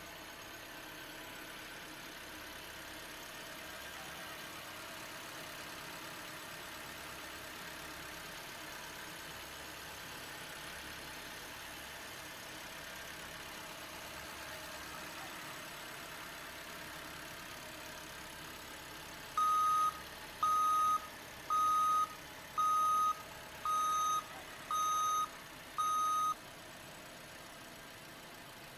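Remote-control toy vehicles with a steady engine-like running sound. About two-thirds of the way through, a reversing alarm beeps seven times, about once a second, on one steady pitch.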